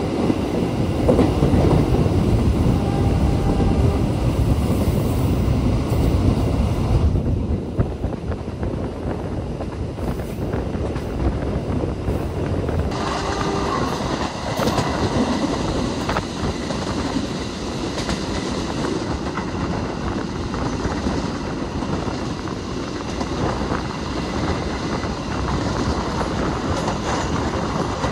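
Passenger train running at speed, heard from an open carriage door: a steady rumble of wheels on the rails. It is louder for the first several seconds inside a tunnel, then runs on steadier in the open with a light clickety-clack.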